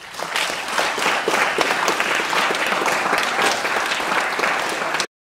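Audience applauding, a dense run of many hands clapping that starts right after the speaker's thanks and cuts off suddenly near the end.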